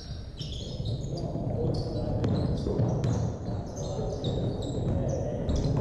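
Basketball game play on a gym court: sneakers squeaking in many short, high chirps, a ball bouncing, and players' voices murmuring underneath.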